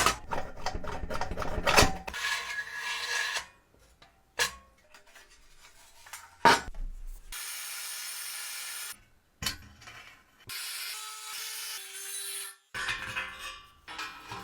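Hand work on a mini soccer game toy during restoration: sharp clicks and taps, then stretches of scraping and rubbing. Each stretch starts and stops abruptly.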